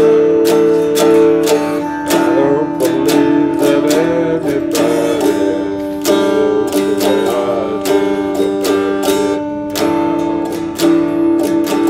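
RockJam Stratocaster-style electric guitar picked in a steady rhythm, with chords ringing between the strokes.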